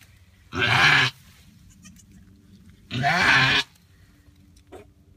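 Goat doe bleating loudly twice while straining in labour to deliver a breech kid, each call about half a second long, the second about two seconds after the first.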